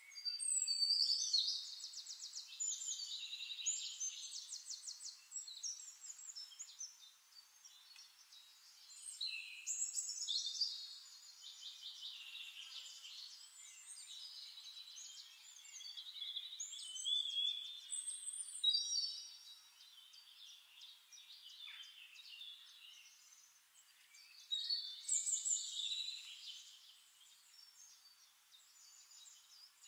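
Songbird singing: phrases of rapid, high-pitched trills and chirps a few seconds long, with short pauses between them, loudest in the first few seconds and again around two-thirds of the way through.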